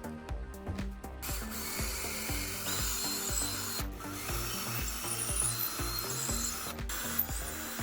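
A power tool working on material, a steady noisy run starting about a second in and briefly breaking twice, over background music with a steady beat.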